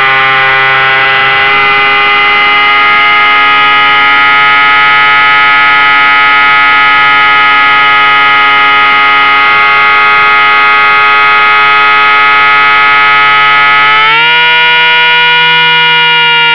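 RC Seamaster flying boat's electric motor and propeller in flight, giving a loud, steady whine. Its pitch rises near the end as the throttle is opened.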